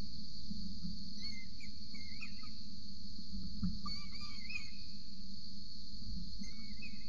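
A steady high-pitched insect drone over a low hum, with three brief bouts of faint, wavering, squeaky chirping calls.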